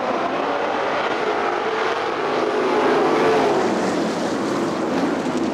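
Winged sprint cars' V8 engines racing on a dirt oval, several engines running together. The pitch climbs and then drops about three and a half seconds in, where it is loudest.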